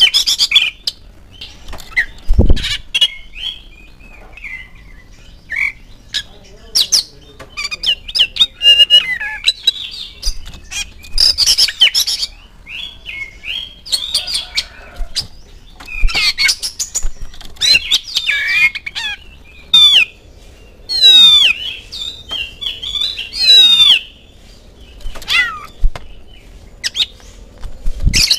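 Oriental magpie-robin (kacer) singing in loud, separate bursts of varied whistles, chatter and harsh notes, with a run of wavering whistled glides about three-quarters of the way through. A dull thump about two and a half seconds in, and a sharp flutter of wings near the end as the bird flies across its cage.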